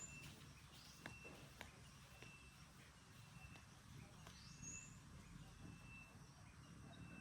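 Near silence: faint outdoor ambience with a short, high chirp repeating about once a second, one brief higher chirp in the middle, and a couple of light clicks near the start.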